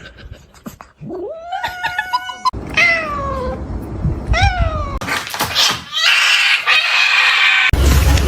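A domestic cat meowing three times. A long meow about a second in rises and then holds, and two shorter meows follow, each falling in pitch. A few seconds of scratchy noise follow them.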